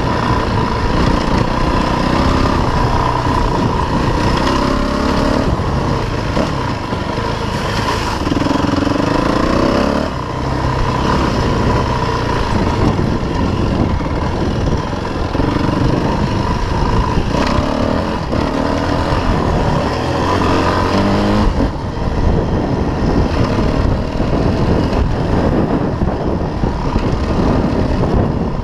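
Dirt bike engine running under way, its revs repeatedly climbing and dropping as the throttle is worked.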